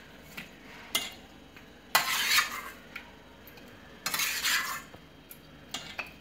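A perforated steel skimmer scraping and clinking against a metal kadai and a steel plate while boiled drumstick pieces are scooped out of their cooking water. It comes in a few separate strokes: sharp clinks about a second and two seconds in, half-second scrapes around two and four seconds, and small clicks near the end.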